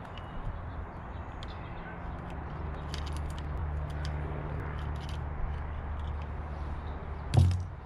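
Bicycle chain being handled and threaded onto a derailleur and cassette: scattered light metallic clicks and rattles, with one louder knock near the end, over a steady low hum.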